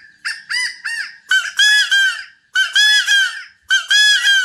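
Homemade wooden quail call with a rubber-band reed, blown to imitate a quail's call: three short high notes, then three phrases of several notes each, about a second apart. The call is being tuned to match a quail recording and is now close to pitch.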